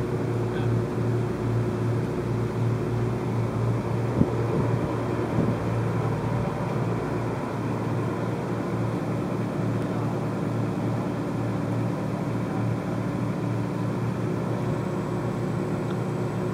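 A ferry's engine drones steadily under the deck as the boat moves through the water, with a single sharp knock about four seconds in.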